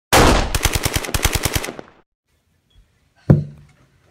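Burst of rapid automatic machine-gun fire, about ten shots a second for about a second and a half, then a single heavy thump about three seconds in.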